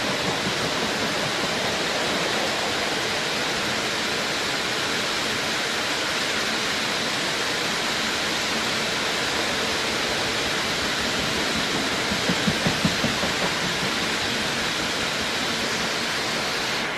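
Heavy monsoon rain hissing steadily, with a short run of low thumps about twelve seconds in.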